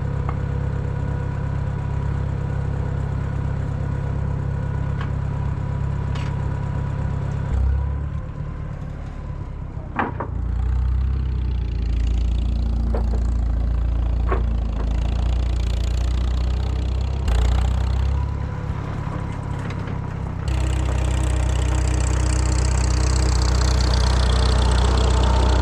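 Engine of farm machinery running steadily, its pitch and load shifting several times, with a few sharp metallic clicks or knocks about ten and fourteen seconds in.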